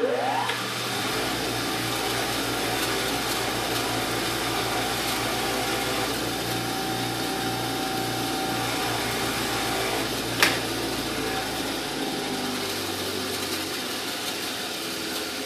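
Power wire wheel spinning up, then running steadily with a brushing hiss as an engine valve is held against it to clean it up. A single sharp tick about ten seconds in.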